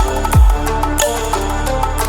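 Electronic background music with a heavy beat: deep falling bass kicks and bright cymbal hits over sustained synth tones.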